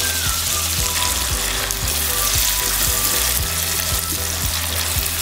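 Freshly added chopped onions frying in hot oil with whole spices, a steady loud sizzle.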